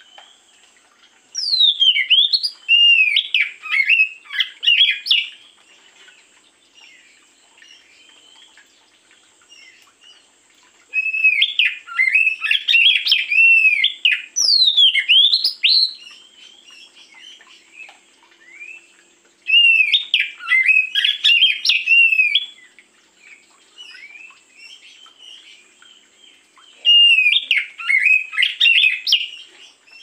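Oriental magpie-robin (kacer) singing: four loud phrases of varied, sweeping whistled notes, each a few seconds long, with pauses of several seconds between them.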